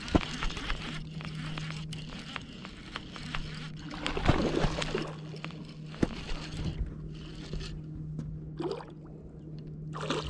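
A hooked fish splashing at the water's surface beside the boat while it is reeled in on a baitcasting reel, with scattered clicks and short splashes, the biggest about four seconds in.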